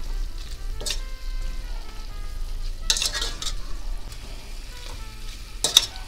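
Chicken gizzards with onions and peppers sizzling in a stainless steel pot while being stirred with a metal spoon. The spoon scrapes and knocks against the pot about three times.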